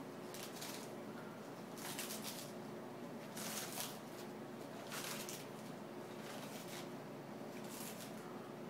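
Sulcata tortoise biting and chewing romaine lettuce leaves: five crisp, leafy crunches at uneven gaps of one to three seconds.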